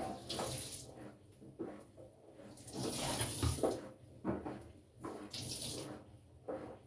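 Front-loading washing machine mid-wash: water and soapy laundry sloshing in the turning drum, in uneven swells about every second.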